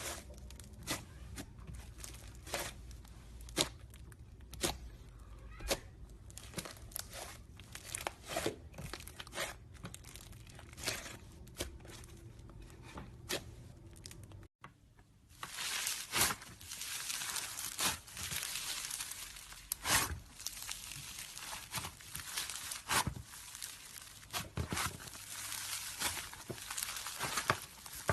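Slime being squeezed and stretched by hand, giving sharp wet pops and crackles. About halfway through the sound cuts and comes back as a louder, denser crackling.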